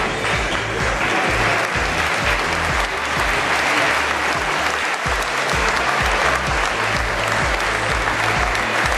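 Pop music over a stadium public-address system, its bass line thudding in steady blocks, under a continuous hiss of crowd clapping and noise in the stand.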